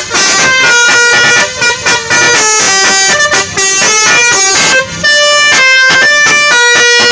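Basuri telolet multi-tone bus horn playing a melody: a rapid run of loud, steady horn notes stepping up and down in pitch, in short phrases with brief breaks between them.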